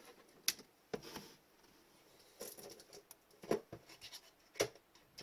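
Trading cards being handled on a table: short sliding scrapes and four sharp taps or clicks, the loudest about three and a half and four and a half seconds in.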